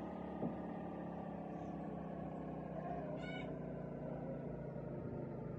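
A pigeon squab gives one short, high squeak about three seconds in, over a steady mechanical hum that drifts slightly down in pitch; the squab is coming round after being chilled.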